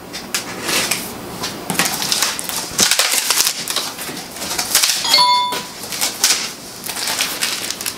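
Cardboard shipping box being opened: packing tape slit with a small tool and the stiff flaps pulled back, in a run of short scraping and rustling noises. About five seconds in, a brief ringing ding cuts across it.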